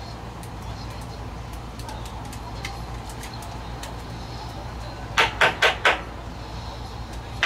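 Four quick, sharp knocks in a row about two-thirds of the way in, then one more near the end, over faint scattered handling clicks and a steady low hum.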